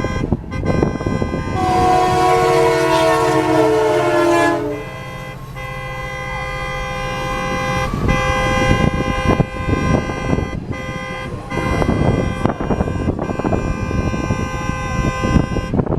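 The horn of locomotive CP 2246, an EMD GP20C-ECO, sounds one long blast that drops slightly in pitch as it goes by, over several car horns held down steadily. Afterward the train's cars roll through the crossing with repeated wheel knocks while the car horns keep sounding.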